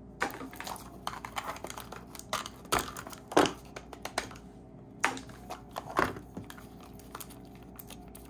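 Fingers and fingernails working at a hard plastic Zuru Mini Brands capsule ball to pry it open: irregular clicks, taps and scrapes of plastic, with light crinkling, the sharpest clicks in the middle and fewer near the end.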